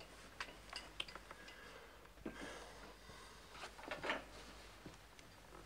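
Faint, scattered wooden clicks and soft knocks of chess pieces being moved and set down on a board, with a couple of brief rustles about two and four seconds in.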